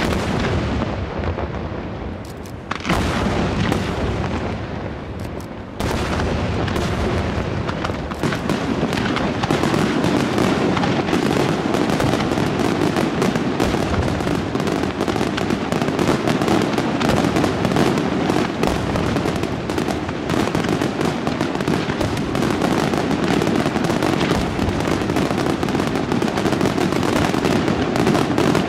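Aerial firework shells bursting: a few separate heavy booms in the first six seconds, then a dense, unbroken barrage of bangs and crackling.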